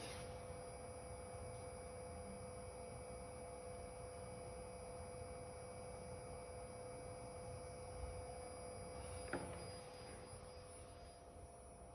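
Faint steady electronic hum from bench test equipment, made of several steady tones including a thin high whine. There is a light handling knock about nine seconds in.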